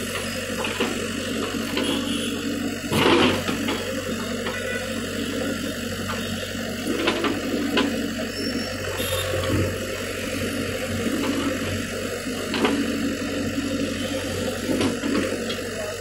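JCB 3DX backhoe loader's diesel engine running steadily while the backhoe bucket digs among broken concrete slabs and soil, with several knocks of the bucket and rubble, the loudest about three seconds in.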